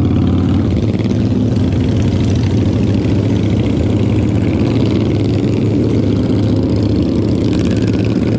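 Motorcycle engines running steadily in traffic alongside, with a loud, constant low hum.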